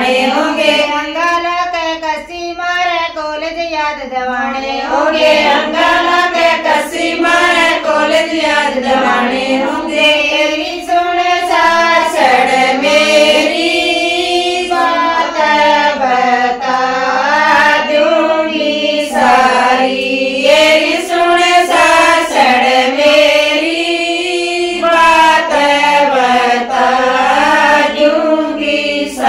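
Group of women singing a Haryanvi folk song (geet) together, voices carrying a wavering melody without pause.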